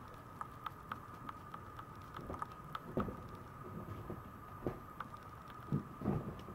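Maltese puppy's claws clicking on a hard tiled floor as it trots, light quick taps about three to four a second. Near the end, close rubbing and brushing as its fur touches the camera microphone, over a steady faint high tone.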